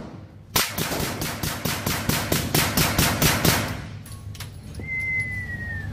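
Suppressed Uzi submachine gun firing one shot, then a long fully automatic burst of about three seconds, evenly spaced shots in quick succession. After the burst come a single click and a thin high tone that falls slightly.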